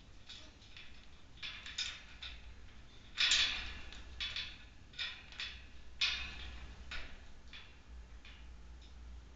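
A Goffin's cockatoo's beak working at its metal cage top, making irregular clicks and scratchy scrapes, the loudest a scrape about three seconds in.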